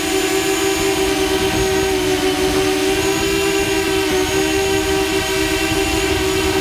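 Multirotor drone's propellers humming steadily: two close, slightly wavering tones with higher overtones, over a low rumble.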